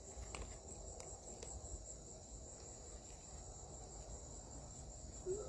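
Crickets chirping steadily in a high, continuous drone, with a few faint clicks in the first second or so.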